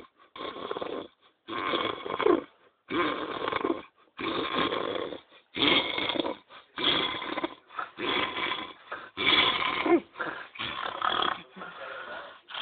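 A sleeping man snoring, with about ten snores in a steady rhythm, roughly one every second and a quarter, separated by short silent gaps.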